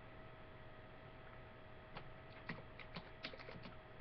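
Steady faint electrical hum, then, about two seconds in, a quick run of about eight light computer clicks.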